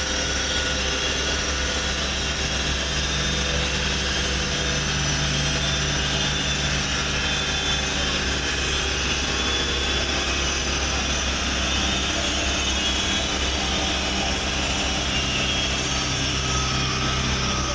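Steady mechanical drone with a low hum that holds level with no revving: a car engine idling on a chassis dyno.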